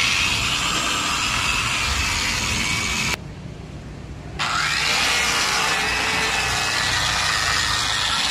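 Electric angle grinder with a buffing pad running against a polished granite countertop, a steady whine with the pad rubbing on the stone; the grinder runs at reduced speed on a 110-volt adapter. About three seconds in it cuts off suddenly, then spins back up with a rising whine a second or so later.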